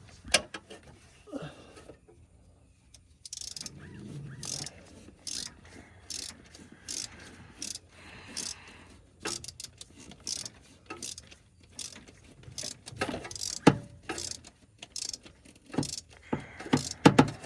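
Hand ratchet clicking in short strokes, snugging a new spark plug down into the engine.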